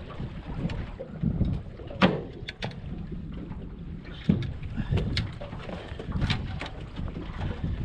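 Wind buffeting the microphone and water moving against a small boat's hull, with a few short knocks and clicks scattered through.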